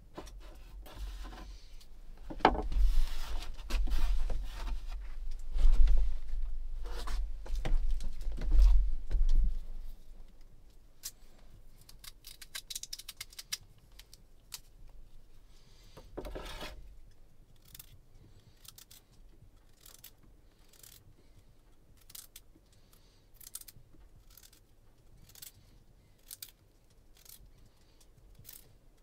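Kitchen knife slicing a carrot held in the hand over a small metal pot, with a crisp click at each cut, one or two a second. The first ten seconds or so are louder, with knocks and low handling thumps against the table.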